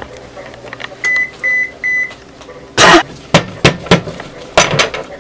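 An electronic kitchen appliance beeps three times, short high beeps about half a second apart. A rubber spatula then knocks and scrapes several times as it stirs brownie batter in a mixing bowl.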